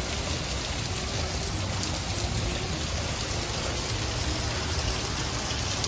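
Heavy rain pouring down steadily in a thunderstorm, splashing onto a puddled driveway and yard.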